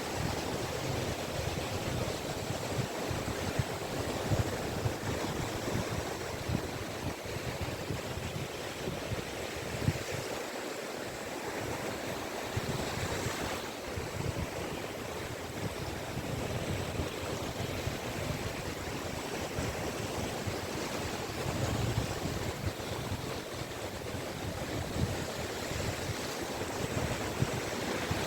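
Small sea waves washing onto a beach in a steady, continuous wash that swells and eases, with some low rumble of wind on the microphone.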